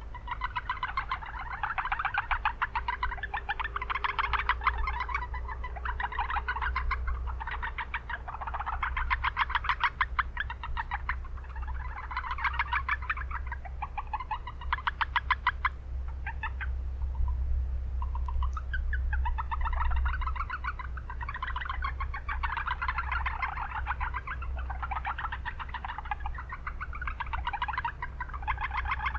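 A chorus of Japanese brown frogs (Rana japonica) calling in overlapping runs of rapid pulsed notes, each run lasting a second or two. A steady low hum of town background noise runs underneath.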